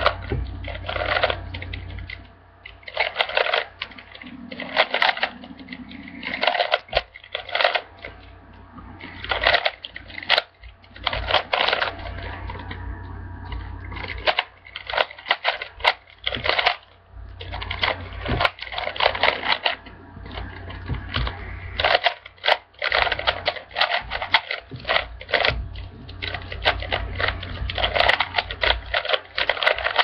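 Plastic Rubik's cube being turned fast, its layers clicking and rattling in quick runs of turns broken by short pauses.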